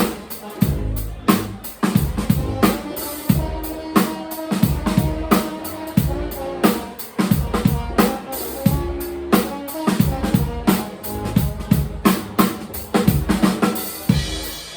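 Live band playing an instrumental passage: a drum kit with kick and snare keeps a steady beat under a bass line and held notes from other instruments.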